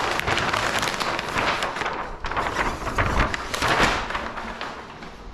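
Crackling, rustling noise of vinyl wrap film being handled and worked onto a car body, coming in several swells and fading near the end.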